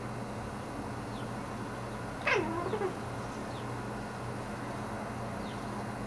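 Domestic cat giving one short meow that falls steeply in pitch, followed by a brief weaker note, as it vocalizes at birds outside a window.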